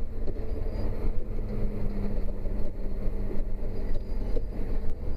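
John Deere 6170R tractor's six-cylinder diesel engine running steadily with a steady hum, heard from inside the cab as the loader tractor reverses with the throttle opened a little.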